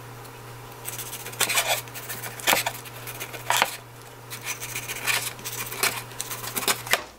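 Kitchen knife slicing through a pan-fried jeon roll and knocking on a wooden cutting board: a run of irregular taps and light scrapes.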